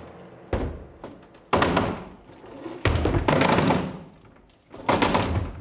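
Large wooden walking robot clunking through a walking attempt: four heavy thunks one to two seconds apart, each fading out with a short rattle.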